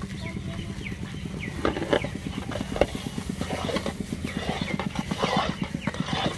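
Dry semolina and flour poured in a stream from a bag into sugar syrup in a large iron karahi, a soft pouring hiss. Under it runs a steady low hum that turns into a fast, even pulsing partway through.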